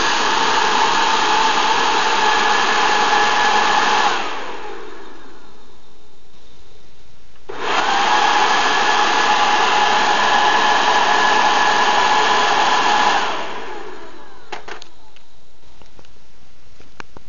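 Air blown into a Garrett TA51 turbocharger spins its wheels: a loud rush of air with a steady whine, twice. Each time the air cuts off, the whine falls away as the spinning slows. A few light clicks near the end.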